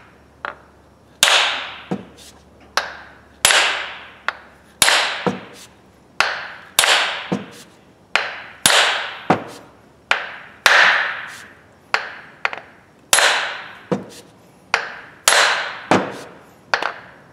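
Hammer blows driving a wooden handle further into the eye of a 3 lb hammer head: a long, steady series of sharp strikes, a bit more than one a second, each with a short ringing fade.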